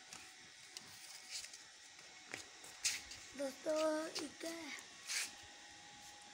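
A high-pitched voice, like a child's, sounds a few short syllables about halfway through. A couple of sharp clicks come just before and after it.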